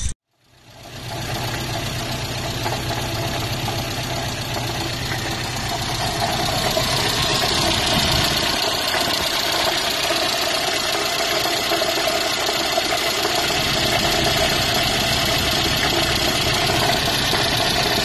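Datsun A12 four-cylinder engine running at idle with a knock that sounded like a rod knock. It was traced to a loose crank pulley wobbling on its backed-out bolt. The sound fades in just after the start.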